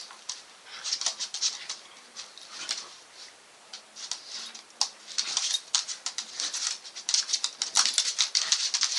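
A Staffordshire bull terrier and a Jack Russell terrier play fighting on a wooden floor: rapid clicking and scrabbling of claws, thinner in the first half and busier and louder from about halfway on.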